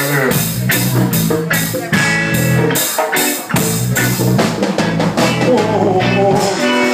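Live band jamming: a drum kit keeps a steady beat under electric guitar and a low bass line.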